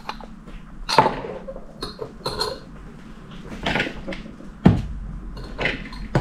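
Kitchenware being handled and set down on a wooden tabletop: several short knocks and clinks, about one a second.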